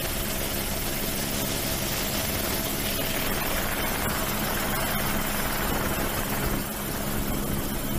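Steady drone of an aircraft engine under a broad rushing hiss, dipping slightly about six and a half seconds in.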